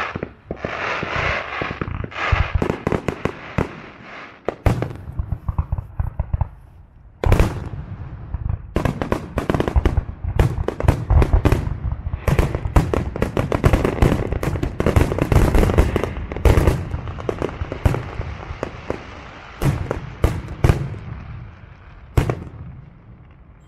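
Fireworks going off in a rapid barrage of bangs and bursts. After a short lull, a big bang comes about seven seconds in, followed by dense, nearly continuous reports that thin out near the end.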